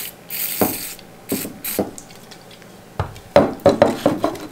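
Short hiss of an aerosol can of CSM-3 degreaser spraying onto a cotton pad, lasting about half a second. Near the end come a run of sharp knocks and clatter as the can is handled and set down on the table.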